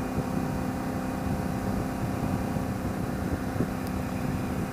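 Motorcycle engine running steadily at cruise with wind rush, heard from a helmet-mounted camera.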